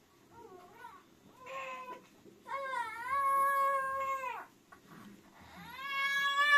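Two-month-old baby crying: a few short whimpers, then a long held wail about two and a half seconds in, and another wail near the end that swells and is the loudest.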